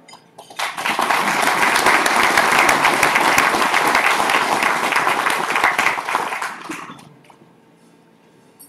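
Audience applauding, starting about half a second in and dying away about a second before the end.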